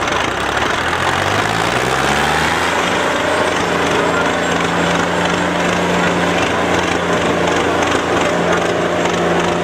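Tractor diesel engine revving up over the first two seconds or so, then held at high, steady revs under full load while pulling in a tractor tug-of-war.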